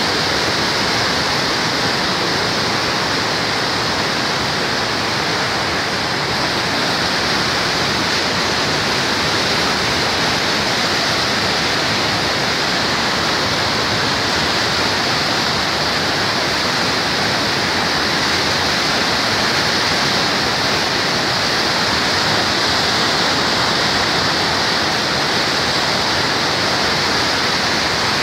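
Muddy floodwater of the Sapta Koshi River rushing and churning through the Koshi Barrage: a loud, steady rushing of turbulent water.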